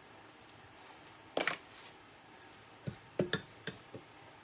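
Metal batter scoop clicking and knocking against a glass mixing bowl while scooping thick onion batter: one sharp click about a second and a half in, then a quick cluster of four or five knocks near the end.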